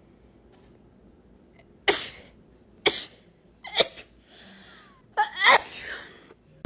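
A person sneezing repeatedly: four sharp sneezes about a second apart, the last one longer.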